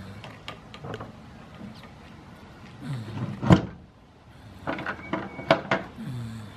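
Goat chewing its cud right at the microphone: a run of sharp crunching clicks from its teeth, the loudest about three and a half seconds in, and a quick cluster of them around five seconds.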